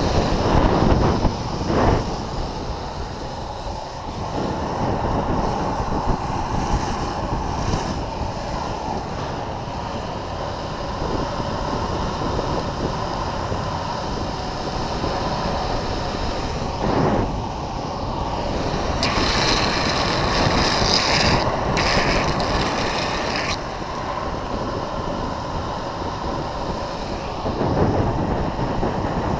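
Wind rushing over the camera microphone and longboard wheels rolling on asphalt during a fast downhill run, a steady rushing noise. A brighter hiss joins in for a few seconds past the middle.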